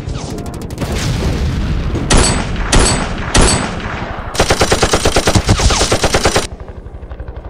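Gunfire sound effects: three separate rifle shots a little over two seconds in, then a burst of rapid machine-gun fire lasting about two seconds, over a steady low background noise.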